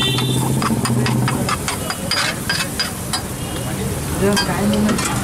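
A steel ladle clacks and scrapes on a large flat metal griddle as samosa chaat is mashed, about three or four sharp knocks a second for the first three seconds.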